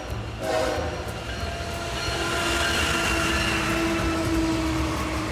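A BNSF freight train's diesel locomotives: the horn's last blast ends about a second in. The lead units then close in and pass, with a growing engine and rail rumble and a steady tone above it from about two seconds in.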